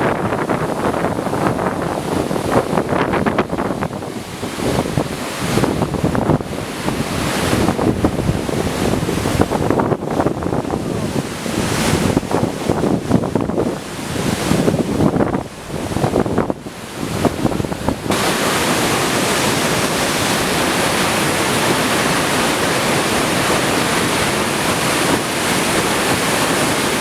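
Waterfall rushing, with wind gusting and buffeting the microphone for the first two-thirds; about two-thirds through the sound changes abruptly to a steady, even roar of falling water.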